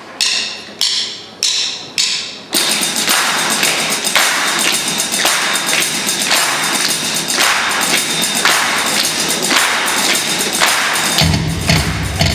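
Group tap dancing with live percussion: four ringing strikes open it, then a dense, steady stream of tap-shoe taps with regular accents. Near the end a band's bass comes in under the tapping.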